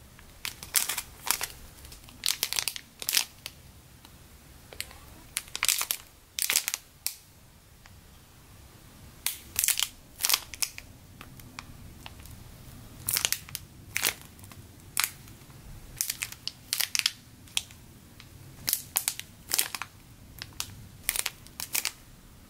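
Clear plastic packaging bags crinkling in short, irregular bursts as bagged squishy toys are picked up, held and swapped by hand.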